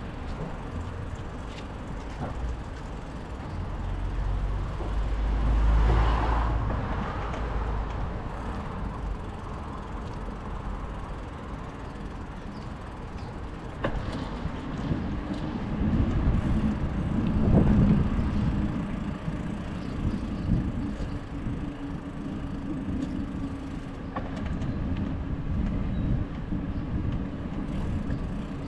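City street traffic heard from a moving bicycle. Passing vehicles make a steady rumble that swells louder twice, about five seconds in and again around seventeen seconds.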